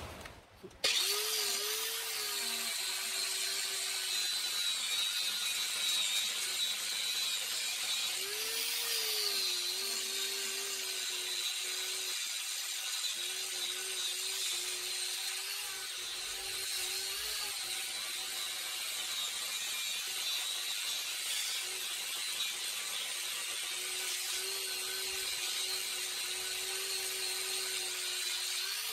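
Parkside PWS 125 E4 angle grinder with a sanding disc working a rusty steel bar: a steady motor whine with the hiss of the abrasive on the metal. It starts about a second in, and its pitch lifts briefly a few times.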